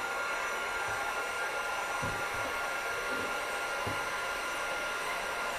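Heat gun blowing steadily, an even rush of air with a faint high whine, warming vinyl wrap to soften it. Two soft low knocks come about two and four seconds in.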